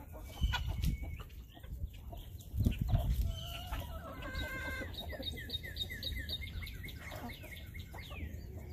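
Chickens clucking and calling, uneasy at eagles circling overhead. Near the middle comes a quick run of short, repeated calls, about four a second, over a low rumble.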